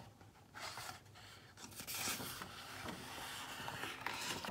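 Paper rustling and sliding as a page of a hardcover picture book is handled and turned: a brief rustle about half a second in, then steadier, slightly louder rustling from nearly two seconds in.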